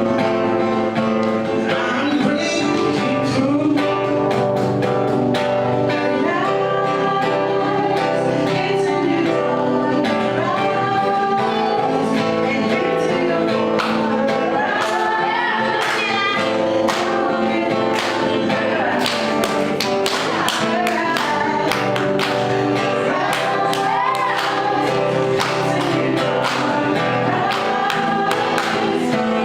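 A worship song sung by voices over instrumental accompaniment with a steady strummed or tapped beat.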